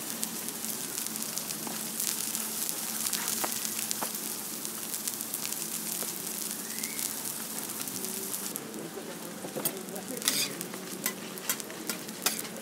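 Burger buns and beef patties sizzling in oil on a flat-top griddle, a steady dense hiss. Near the end the hiss thins and sharp metal clicks of a spatula on the griddle come in, several in quick succession.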